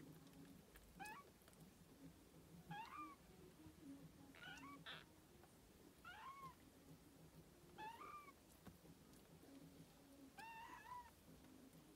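Very young kittens mewing faintly: about six short, high-pitched cries that rise and then drop, one every one and a half to two seconds.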